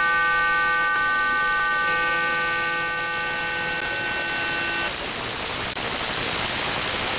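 Cuban spy number station's data burst received on shortwave at 11530 kHz: several steady tones sounding at once. They stop about five seconds in, leaving shortwave static.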